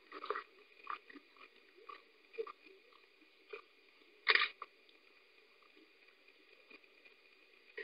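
Giant panda chewing bamboo shoots: a run of short, uneven crunches, the loudest about four seconds in, then only faint ones near the end.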